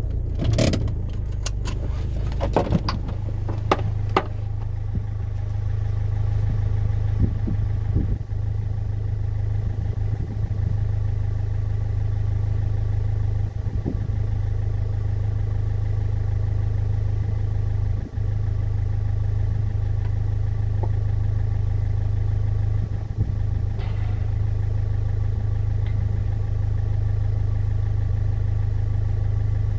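Land Rover Freelander Td4's four-cylinder turbodiesel idling steadily while the vehicle stands still. There is a quick cluster of sharp clicks and knocks in the first few seconds.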